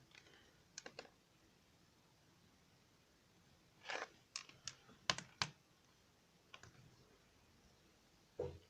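Scattered sharp plastic clicks from handling a CD case and its packaging: a pair about a second in, a short rustle near the middle, then four quick clicks, with long quiet gaps between.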